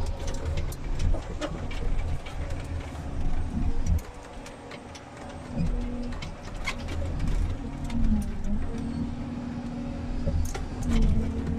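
Komatsu 931.1 forest harvester heard from inside its cab: the engine and hydraulics are working the crane and harvester head as the head grips a tree, with a low rumble and scattered clicks and knocks. The machine goes quieter for a moment about four seconds in. A steady hydraulic hum comes in during the second half and dips in pitch twice.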